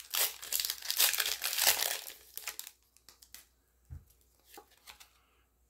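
Foil wrapper of a Pokémon TCG booster pack being torn open and crinkled by hand, dense crackling for about the first two and a half seconds. Then a few faint clicks as the cards are handled.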